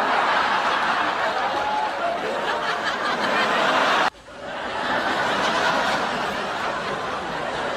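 Studio audience laughing in a sustained wave. It cuts off abruptly about four seconds in, and a second stretch of audience laughter starts straight after.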